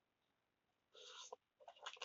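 Close-up eating sounds from a bowl of spicy instant noodles. Quiet for about a second, then a brief slurp, followed by a quick run of small wet mouth clicks from chewing.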